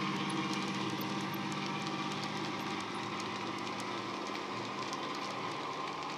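Dapol Class 68 model locomotive's DCC sound decoder playing a JMC Class 68 diesel engine sound through an EM2 speaker, a steady drone that slowly gets quieter as the train pulls away, with light rapid clicking of wagon wheels on the track.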